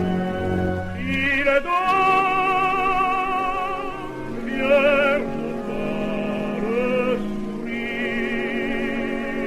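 Operatic music from an early Pathé 78 rpm disc: a run of sustained notes with strong vibrato, changing pitch every second or two, with the narrow, top-cut sound of an old shellac recording.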